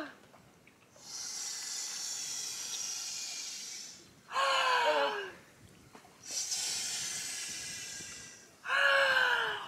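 A woman blowing up an inflatable swim buoy by mouth: two long breaths into the valve, each two to three seconds, each followed by a short vocal sound that falls in pitch.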